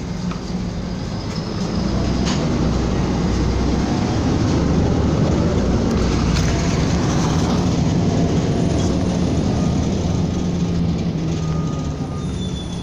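Inside a LiAZ-5292.22 city bus under way: steady engine hum and road rumble, growing louder about two seconds in and easing off near the end, with a few light rattles early on.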